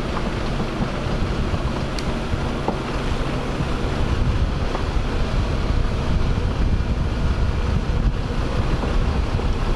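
A steady low rumble with wind buffeting the microphone.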